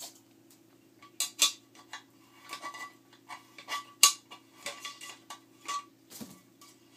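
Pliers clicking and clinking against a nut and the aluminium flood light housing as the inside nut is loosened, a series of sharp separate metal clicks with the loudest about four seconds in, over a faint steady low hum.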